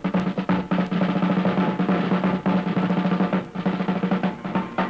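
Snare drum roll with bass drum beats and a steady low band note under it: the drum introduction to a brassy march song.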